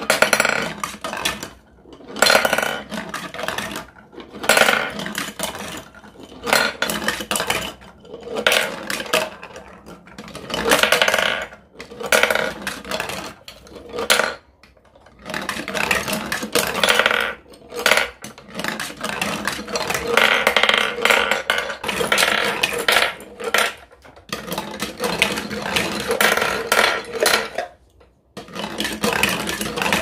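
Balls of a magnetic-tile marble run rolling and clattering down translucent plastic chutes and spirals, coming in repeated surges every second or two with a few brief pauses, and knocking as they land among the balls in the catch tray.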